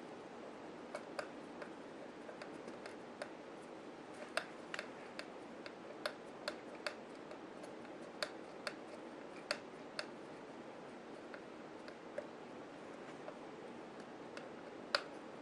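Small, irregular clicks and ticks, roughly one or two a second, of a driver working the screws that hold a beadlock ring onto a wheel.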